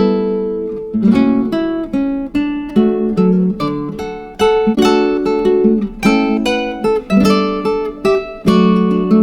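Background music: acoustic guitar, plucked and strummed chords in a steady rhythm.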